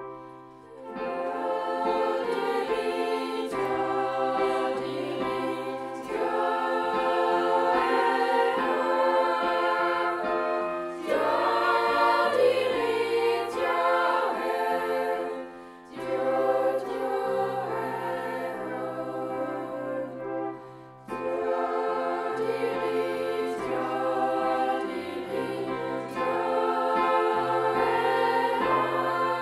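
A choir singing, in long sustained phrases with brief pauses between them.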